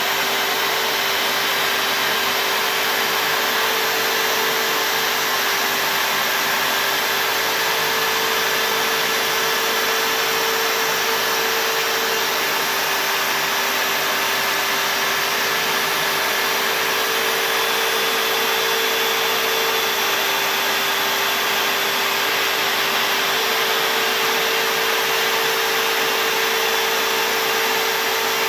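CNC router spindle running steadily as its bit cuts letters into a white-faced MDF board, with a dust-extraction vacuum running alongside: an even rush of air under a steady machine whine.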